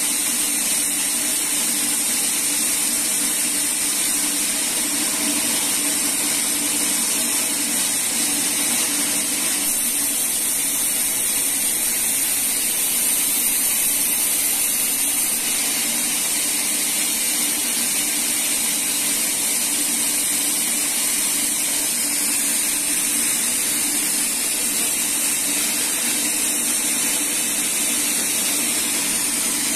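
Sawmill band saw running and cutting lengthwise through a teak log: a steady, unbroken noise of the blade in the wood over the machine's drive.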